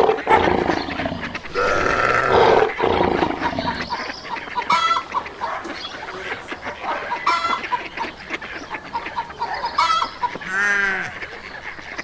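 Animal sound effects laid over the toy scene: a growl over the first few seconds, then short clucking calls about every two and a half seconds, and a longer arching cry near the end.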